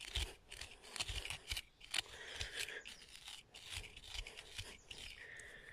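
Knife cutting and scraping into lawn turf and soil in a run of short, irregular strokes.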